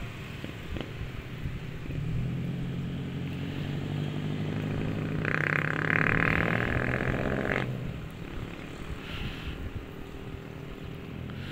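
A motor vehicle passes close by. Its engine hum builds from about two seconds in, and a louder, higher noise joins it for a couple of seconds near the middle before both cut off fairly suddenly.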